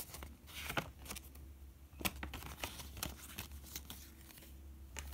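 Paper rustling and crinkling as a folded instruction manual is opened out and folded back by hand, in a string of short, sharp crackles.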